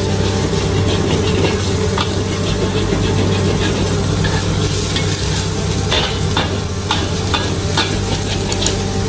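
Egg sizzling in hot oil in a wok while a metal wok spatula stirs and scrapes it, with frequent sharp clicks and taps of the spatula against the wok, most of them in the second half. A steady low hum runs underneath.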